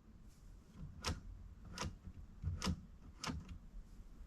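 Four sharp plastic clicks about a second apart, from the toy narwhal's spinning letter wheel being turned by hand.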